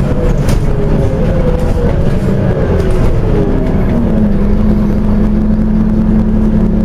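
Scania OmniCity single-deck bus heard from inside the passenger saloon. The engine note falls as the bus slows, then settles into a steady hum a little over halfway through, with a few faint rattles near the start.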